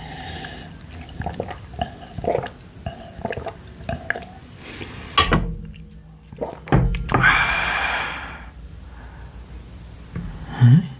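Close-miked eating of pork-bone soup: chewing, with utensil clicks and knocks against the bowl throughout. A louder noisy sound lasting about a second comes about seven seconds in.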